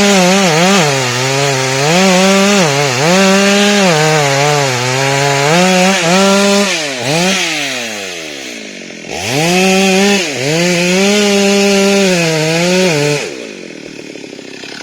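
Chainsaw cutting into rubber tree wood, its engine speed sagging and recovering again and again under the load of the cut. About seven seconds in the engine falls away almost to a stop, then revs back up sharply near nine seconds and cuts again, before dropping off near the end.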